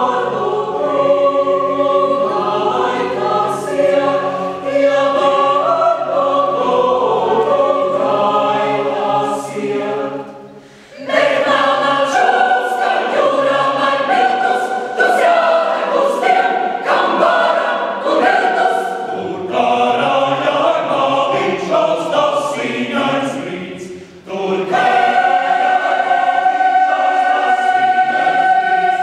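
Mixed choir of women's and men's voices singing a Latvian choral song in full harmony. There are two brief breaks between phrases, about ten and twenty-four seconds in.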